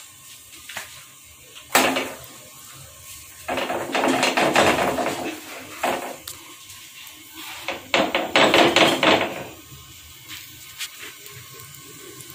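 Knocks and clatter of a flat iron tawa (griddle) on a gas stove as a paratha is laid on it to cook: a sharp knock about two seconds in, then two longer bursts of clattering, around four and eight seconds in.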